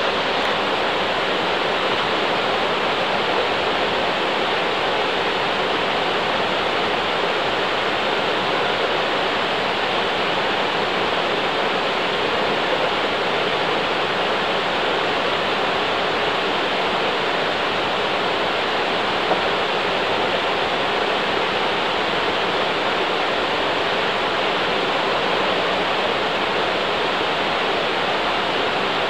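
Waterfall cascading over granite ledges: a steady, even rush of falling water that never lets up.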